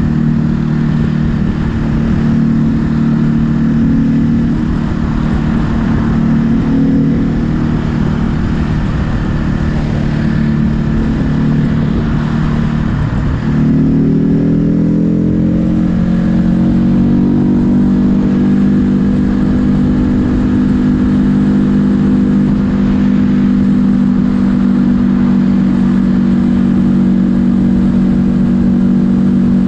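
2022 Ducati Hypermotard 950 SP's L-twin engine running steadily while being ridden, over a low rush of wind noise. About halfway through the engine note dips briefly, then climbs and holds steady again.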